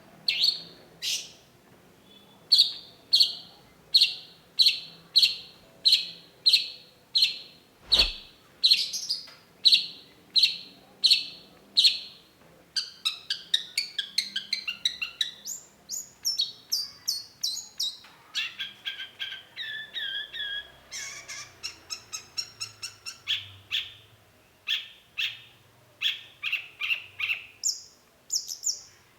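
Long-tailed shrike singing: a run of loud, harsh notes repeated about one and a half times a second, then a faster, varied stretch of chattering notes at shifting pitches. A single low thump sounds about eight seconds in.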